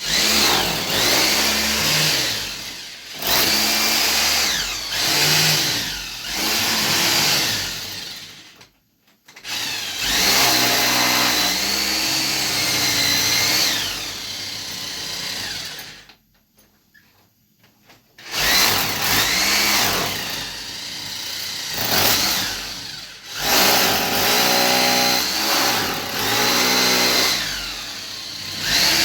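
Electric power drill running in long bursts, its motor pitch rising and falling as the trigger is worked, stopping briefly about nine seconds in and again for two seconds past the middle.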